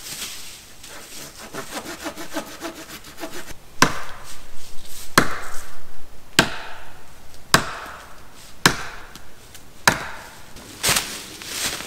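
Wood being chopped by hand: a few seconds of quick rasping, then seven sharp blows a little over a second apart, each ringing briefly.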